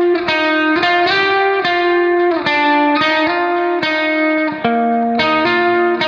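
Background music: a guitar playing a slow melody of plucked notes that ring on, a new note about every half second.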